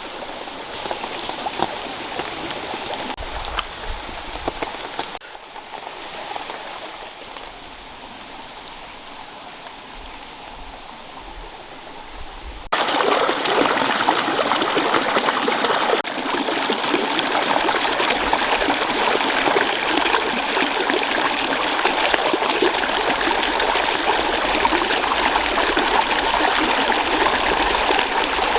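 Steady rushing of running water. It drops back about 5 seconds in, then jumps abruptly louder about 13 seconds in and holds there.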